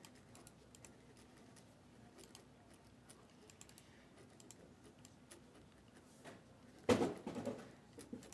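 Faint, scattered clicks of a computer mouse and keyboard, with a short louder thump about seven seconds in.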